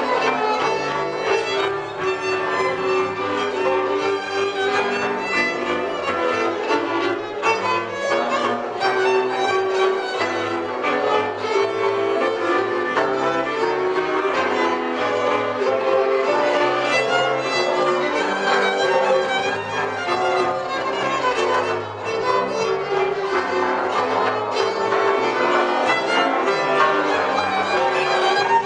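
Folk string band playing live: a lead violin carries a lively tune over a hammered cimbalom and accompanying bowed strings, without a break.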